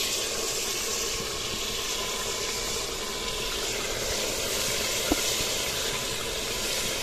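Minced meat and masala frying in a steel pot, a steady sizzle as chopped greens are added by hand, with one light tap about five seconds in.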